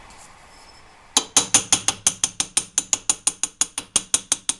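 Hand ratchet wrench clicking rapidly and evenly, about six clicks a second, starting about a second in: a part that would only go partway by hand being run down with the ratchet.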